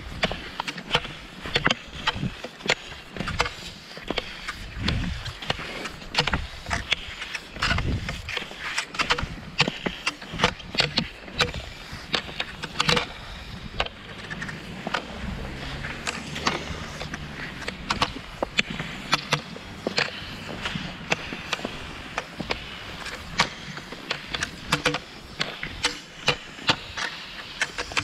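Cross-country skis (Fischer Twin Skin) scraping and gliding over a thin layer of snow, with sharp clicks of the pole tips planting every second or so in a steady skiing rhythm.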